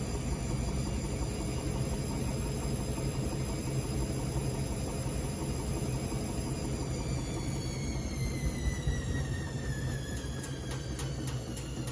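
Hotpoint appliance running with a steady hum and a high motor whine that falls in pitch from about seven seconds in. Near the end, loud regular clicking starts, about three clicks a second.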